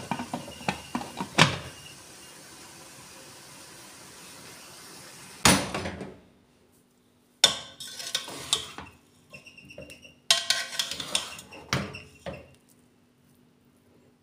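Aluminium pressure cooker being handled: a few sharp clicks of its lid at the start and a loud clank about five seconds in. Then a plastic spatula scrapes and knocks against the pot in short bursts as cooked pulao rice is stirred, over a low steady hum.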